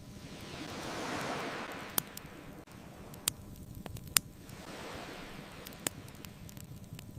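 Ocean waves washing ashore in slow swells, one cresting about a second in and another about five seconds in, with the sharp pops and crackles of a wood bonfire, the loudest pop about four seconds in.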